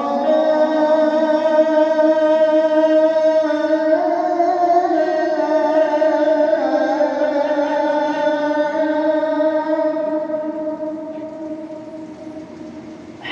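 A man's voice chanting an Islamic recitation in one long, drawn-out phrase, holding ornamented notes that bend slowly in pitch, then fading near the end.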